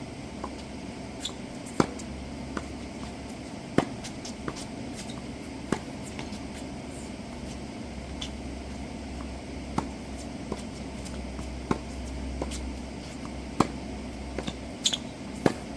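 Tennis rally: sharp strikes of racket strings on a tennis ball about every two seconds, with fainter ball bounces between them.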